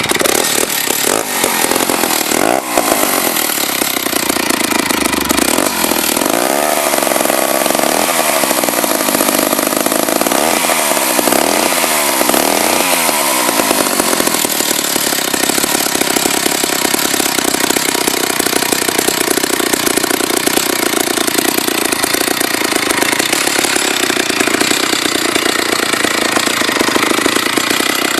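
Restored vintage McCulloch MAC 15 two-stroke chainsaw engine running, revved up and down several times in the first half, then running steadily.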